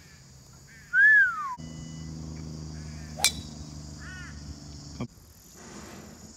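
A driver strikes a golf ball once, a sharp crack about three seconds in. Behind it runs a steady high drone of insects, with several short bird calls. The loudest sound is a falling whistled call about a second in.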